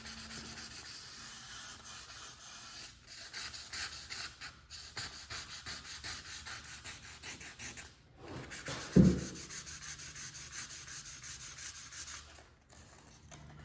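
800-grit sandpaper on a hand sanding block rubbed back and forth over fresh paint, knocking down the raised ridge left by the tape line around painted letters, in quick short strokes about three a second. One short low thump about nine seconds in is the loudest sound.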